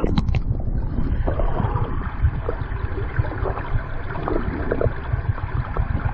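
Low, buffeting rumble of wind on the microphone, with a mountain stream's rush faint underneath. It starts abruptly and keeps surging unevenly.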